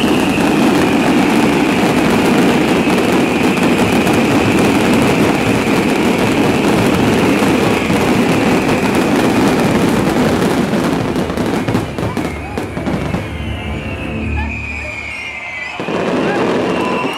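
A fireworks barrage: a dense run of crackling bursts and bangs from many shells going off together. It thins out and gets quieter about twelve seconds in.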